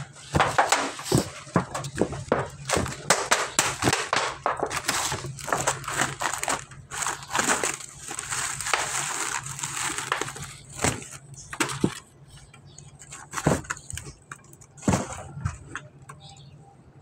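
Knocks and clatter on a corrugated metal roof as kamansi (breadnut) fruits are gathered off it, with a plastic sack rustling about halfway through. The knocking thins out after about twelve seconds.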